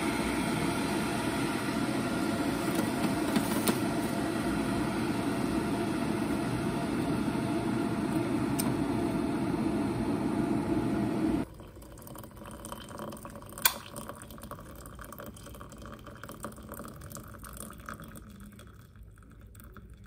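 Electric kettle heating water toward the boil, a steady rushing rumble that cuts off suddenly about halfway through. After it come quieter small handling sounds with one sharp click.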